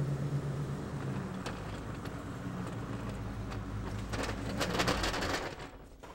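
Steady low mechanical hum, with a spell of clattering about four seconds in that fits a small metal tool cart being rolled across the shop floor; the hum stops near the end.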